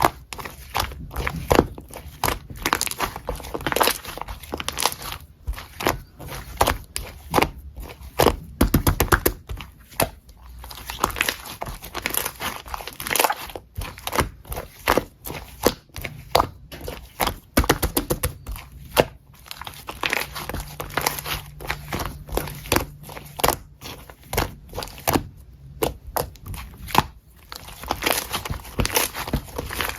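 Clear slime being squished, pressed and stretched by hand, giving a steady stream of sticky pops and clicks from trapped air, with quick runs of rapid popping twice.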